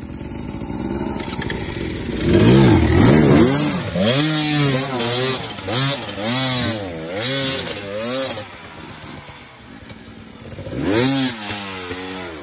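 KTM enduro motorcycle engine revved hard in repeated bursts, the pitch swinging up and down several times, as the bike fights up a steep muddy slope with its rear wheel digging into the mud. It is loudest about two seconds in, eases off past the middle, and has one more burst near the end.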